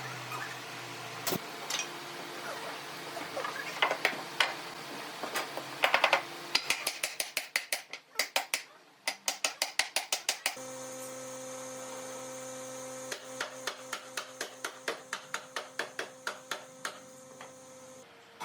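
Two runs of rapid, evenly spaced sharp taps, several a second, after a few scattered clicks, over a steady hum.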